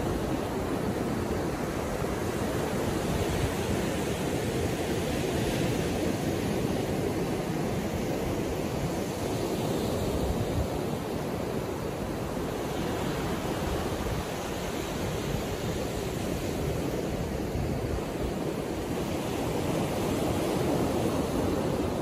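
Gentle ocean surf breaking and washing up a sandy beach: a continuous low rush, with the hiss swelling every few seconds as a wave breaks.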